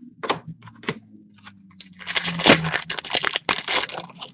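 A trading card pack wrapper or plastic packaging being handled and torn open. A few sharp clicks come first, then a dense run of crinkling and tearing from about halfway through.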